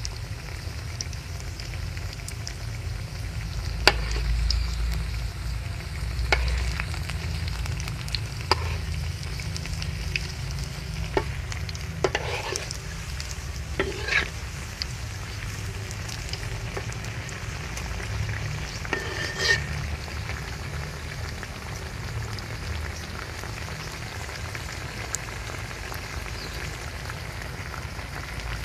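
Breadfruit slices frying in hot coconut oil with a steady sizzle. Now and then a utensil clicks and scrapes against the pan as the pieces are turned.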